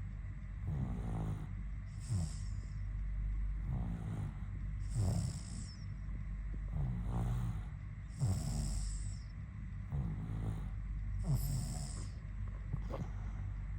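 Snoring: a run of short, quick breaths, about one every second and a half, each a low rattle with a breathy hiss.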